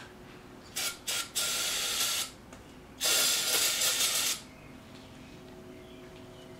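Aerosol cleaner sprayed in bursts into the bore of a brake master cylinder to flush it out. Two short hisses come about a second in, then two longer ones of about a second each.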